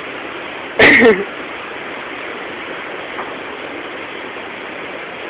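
A steady hiss of outdoor background noise, with one short, loud shout about a second in.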